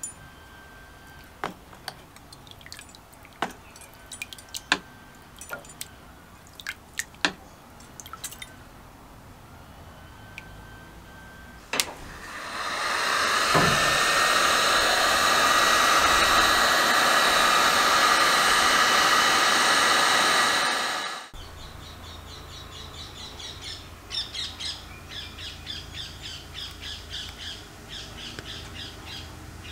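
Electric heat gun switched on, its fan spinning up with a rising whine and then blowing steadily for about eight seconds before cutting off suddenly; it is drying freshly yellow-passivated metal parts. Before it, scattered sharp clicks and drips as the parts come out of the passivation bath.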